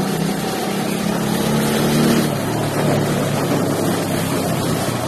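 Motorcycle engine running steadily while the bike is ridden, under a steady rush of wind and road noise. The engine note drops a little just over two seconds in.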